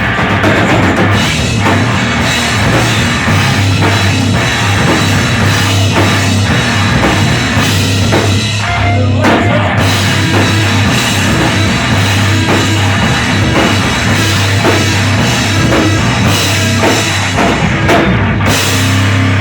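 Live rock band playing loud, with the drum kit out front over bass and distorted guitar.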